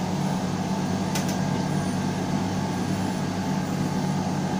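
Steady low hum of engine-room machinery running, even in level and pitch.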